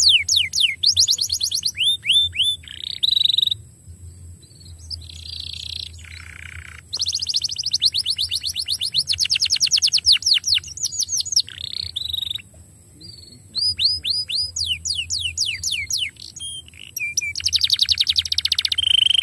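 Domestic canary singing a long song of fast trills and quickly repeated down-sweeping notes, broken by short pauses about four and thirteen seconds in.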